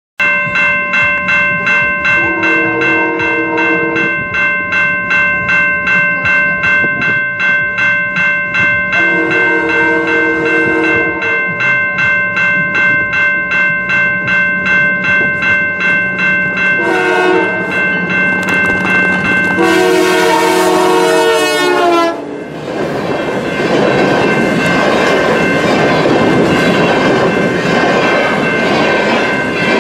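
A level-crossing bell rings steadily, about twice a second, as a CP diesel locomotive approaches sounding its air horn in the grade-crossing pattern: long, long, short, long. The last blast drops in pitch as the locomotive passes. The train then rolls by with loud, steady wheel-and-rail noise while the crossing bell keeps ringing faintly underneath.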